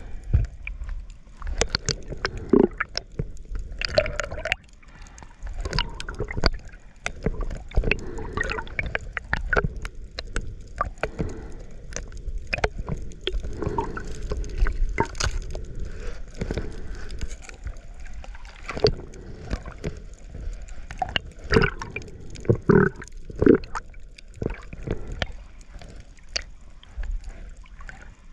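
Seawater sloshing and gurgling around a camera at the surface, with irregular splashes and crackling clicks as it dips in and out of the water.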